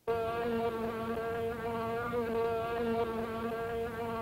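Housefly buzzing, a film sound effect: one steady, droning buzz that wavers slightly in pitch, starting suddenly out of silence.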